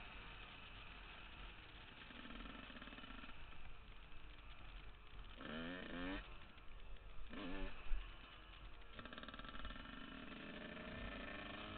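2000 Yamaha YZ125's two-stroke single-cylinder engine running as the bike is ridden, with two short revs about five and a half and seven and a half seconds in. Heard faintly through a helmet-mounted camera over wind rumble.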